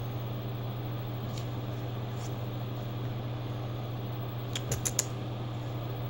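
Steady low hum of room noise, with a quick run of four or five small clicks about four and a half seconds in.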